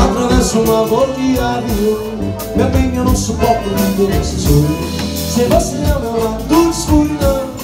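Forró pé-de-serra band playing live: accordion over a steady zabumba drum beat, with guitars and drum kit, in an instrumental passage between sung verses.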